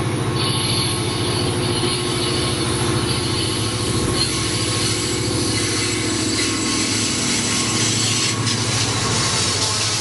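CSX freight train's diesel locomotive approaching and passing close by, its engine running with a low, steady drone. Near the end the steel wheels of the following container cars roll past on the rails.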